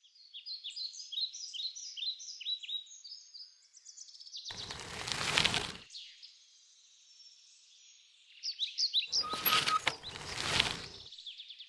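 A songbird singing a rapid series of short, high, falling chirps. Two rushing whooshes swell up and cut off, one about four and a half seconds in and another around nine to eleven seconds.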